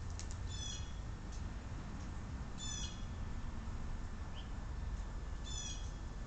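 A bird calling three times, short nasal notes a couple of seconds apart, with a faint brief rising note between the second and third, over a steady low background rumble.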